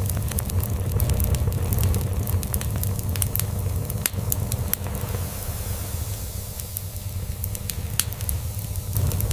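Log fire crackling, with frequent small irregular pops, over a continuous low rumble of a cat purring.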